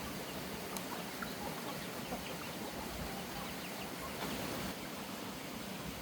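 Chickens clucking, with short high cheeps scattered through, over a steady hiss.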